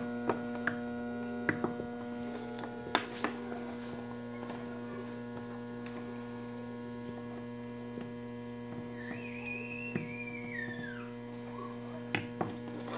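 Microwave oven transformer, its secondary rewound to a few turns of heavy wire to supply about 3 volts AC, humming steadily while energized and driving current through a repaired soldering iron as it heats. A few light clicks from handling.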